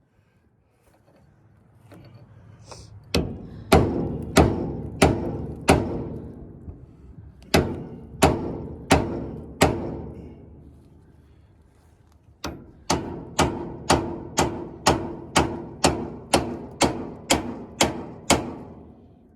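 Hammer blows on metal, each ringing out: four, then four more, then a faster run of about a dozen, roughly two a second.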